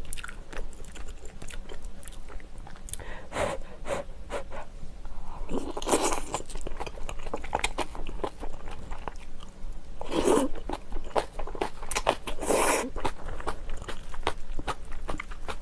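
Close-up chewing of rice and crisp cabbage kimchi: steady wet crunching and mouth clicks, with three louder mouth noises about six, ten and twelve and a half seconds in.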